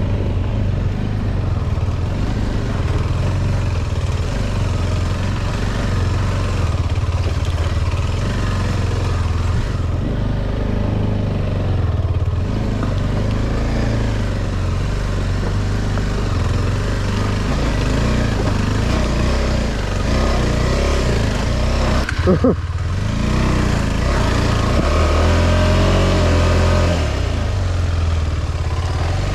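KTM 390 Adventure's single-cylinder engine running while riding, its pitch rising and falling with the throttle, over wind and ground noise. A short thump comes about two-thirds of the way through.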